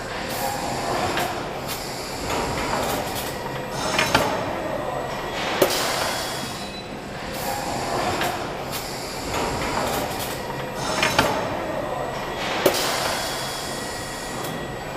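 Car assembly-line machinery noise: a hiss and clatter that swells and fades every couple of seconds over a faint steady hum, with four sharp metallic clanks.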